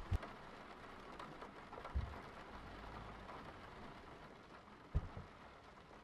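Faint steady hiss with three soft low thumps: one at the start, one about two seconds in and one about five seconds in.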